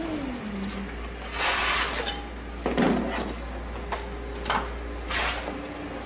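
Handling noises in a car engine bay as the wiring harness is pulled loose: a short falling squeak at the start, a rustling scrape, then a clatter about three seconds in and a few sharp knocks.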